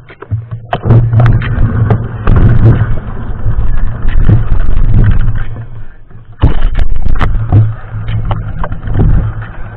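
Mountain bike being ridden over a rough trail: wind buffeting the helmet or handlebar camera's microphone as a heavy low rumble, with the bike rattling and knocking irregularly over the bumps.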